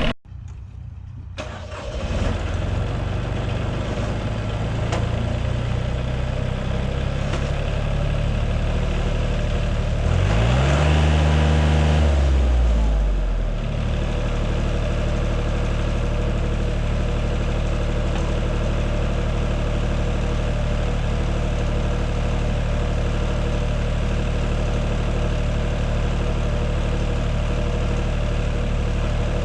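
Wood-Mizer LT50 portable bandsaw mill's engine running steadily, revving up for about three seconds around the tenth second and then dropping back to a steady idle.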